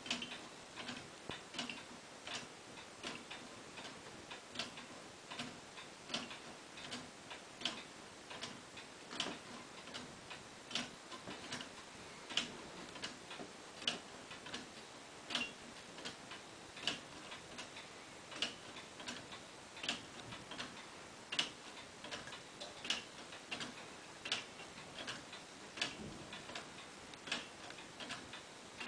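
Homemade pendulum clock with a brass grasshopper escapement ticking steadily: a regular run of light, sharp clicks, some louder than others, as the escapement releases the train with each beat of its one-second pendulum.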